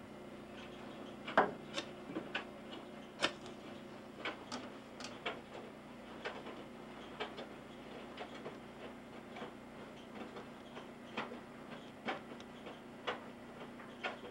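Irregular light clicks and taps of small objects being handled, the sharpest about a second and a half and three seconds in, over a steady low hum.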